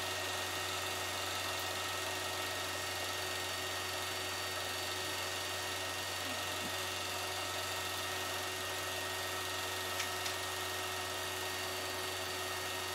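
A steady low hum with hiss and several faint steady tones over it, the background noise under the narration of silent film; two small clicks about ten seconds in.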